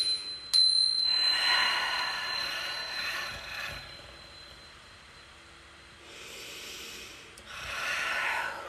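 A woman's long, breathy exhales close to the microphone, released as sighs during a meditation breath; there are two of them, one about a second in and one near the end. A light tap at the very start leaves a thin, high ring that fades over about six seconds.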